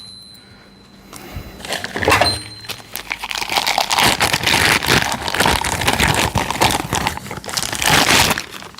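Packaging wrap crinkling and rustling as it is pulled off a large 1-inch-drive impact socket, starting about a second in and going on for several seconds.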